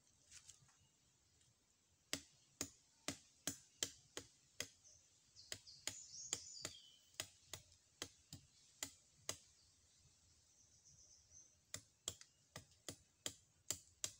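Machete blade chopping at a thin plant stem in light, sharp strikes about two a second, in three runs with short pauses between.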